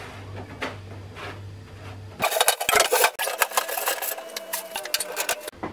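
Cooker hood parts being handled and fitted, heard as faint room hum and then, about two seconds in, a dense run of scraping and rubbing with many small clicks that stops just before the end.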